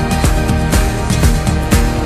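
Music with heavy bass and a steady, driving beat, about two strong beats a second.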